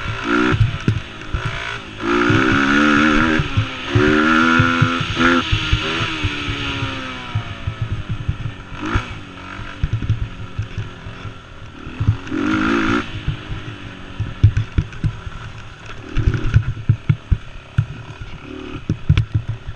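Mini quad's small engine revving in repeated short bursts of throttle, the pitch rising and then falling away between bursts. Constant knocks and rattles from the quad jolting over rough dirt trail run underneath.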